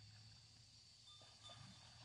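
Near silence: faint outdoor room tone with a low steady hum.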